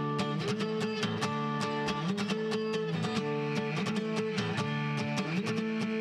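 A guitar strummed live, chords ringing in a steady, even strumming rhythm.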